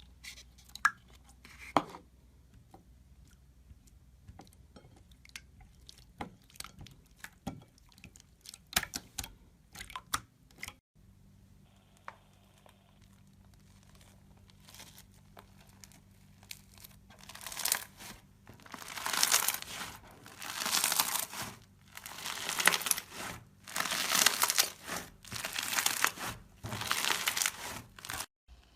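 Slime being handled and pressed: scattered small clicks and pops at first, then, from a bit past halfway, a run of crackling, crinkly squishes about once a second.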